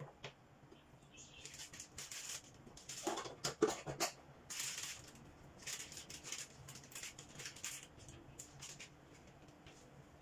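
Irregular rustling, patting and scraping as hands handle raw chicken pieces on a plate, loudest a few seconds in and tapering off near the end.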